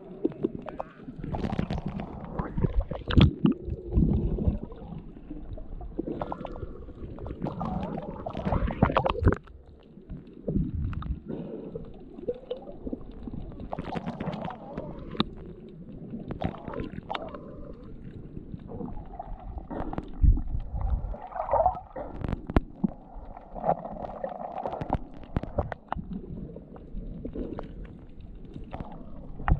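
Water sloshing and gurgling against an underwater camera housing just below the surface, muffled and uneven, with scattered sharp pops and knocks.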